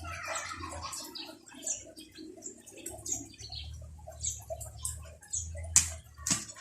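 Rain dripping and pattering in irregular scattered drops, with two sharp knocks close together near the end.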